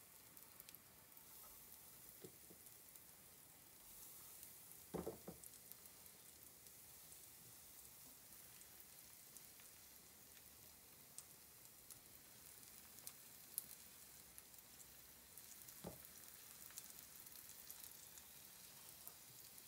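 Floured herring roes frying gently in oil in a pan: a faint, steady sizzle with small crackles, the oil only moderately hot. Two soft knocks, about five seconds in and near the end, as more roes are laid into the pan.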